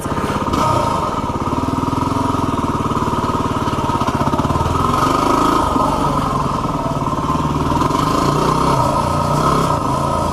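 Yamaha WR250R single-cylinder four-stroke dirt bike engine running steadily, with no sharp revs.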